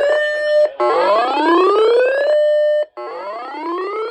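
Electronic whoop alarm tone of a weather-warning broadcast alert: a rising sweep that holds briefly at the top and cuts off, repeating about every two seconds.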